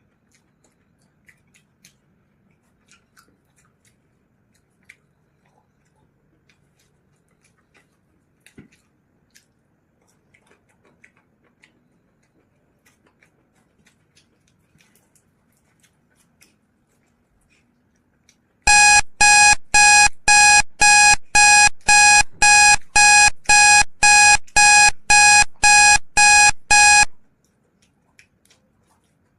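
Faint small clicks of eating, then a timer alarm beeping loudly about twice a second for about eight seconds before it stops, marking the end of a one-minute eating challenge.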